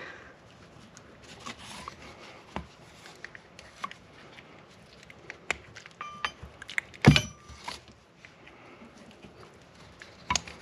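Small clicks and clinks of shifter parts and hardware being handled and fitted, with a brief squeak about six seconds in and one loud knock about seven seconds in.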